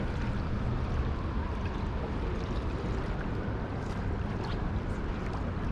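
Steady outdoor noise of wind on the microphone and flowing river water, a low rumble with a wash over it.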